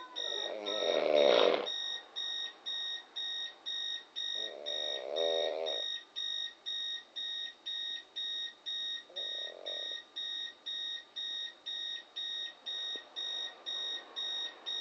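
Alarm clock beeping steadily, about two beeps a second. A person snores through it three times: a loud snore at the start, a second a few seconds later and a fainter, shorter one near the middle.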